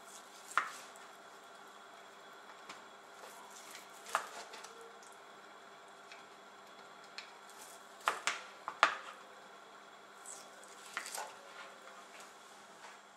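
Kitchen knife cutting through roasted pork ribs on a plastic cutting board: scattered taps and clicks of the blade against the board and bone, a few seconds apart, with a quick cluster about two-thirds of the way through. A faint steady hum runs underneath.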